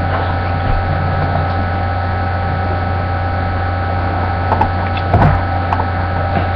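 A steady low hum with a few faint steady higher tones over it, broken by a couple of short knocks about five seconds in.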